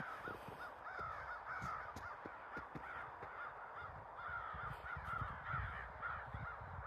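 Many birds calling over and over in a continuous run of short, arched calls, several a second, with low soft thumps of footsteps in snow underneath.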